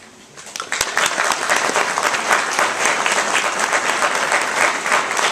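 Audience applauding, starting within the first second and going on steadily.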